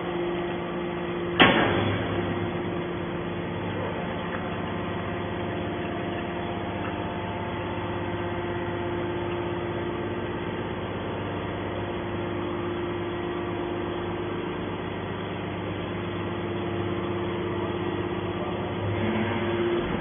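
Hydraulic power unit of a three-ram scrap metal baler running with a steady hum while the ejection ram pushes a compressed bale of scrap out of the chamber. There is one sharp bang about a second and a half in.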